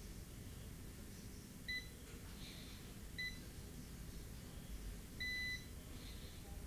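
Digital multimeter in diode mode beeping three times, two short beeps and then a longer one, as its probe touches test points on a phone logic board. The beep signals a low diode-mode reading at the point being probed.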